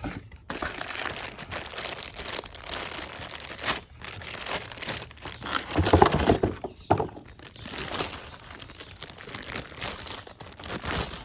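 Packaging crinkling and rustling as new wheel hubs are unwrapped and handled, with scattered clicks and a couple of louder knocks about six and seven seconds in.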